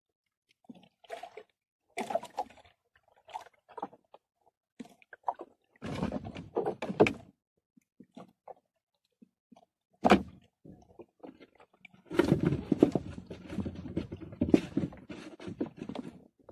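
Handling noise in a small boat: irregular knocks, taps and clatters from fishing line, catch and bait being worked against the hull and seat. One sharp knock comes about ten seconds in, and a longer run of scraping and rustling fills the last few seconds.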